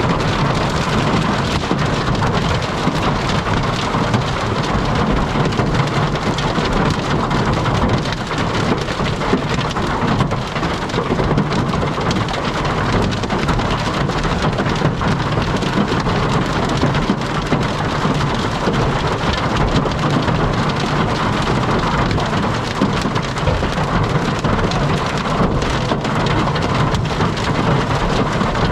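Heavy rain falling hard and steadily, a dense, unbroken patter of drops.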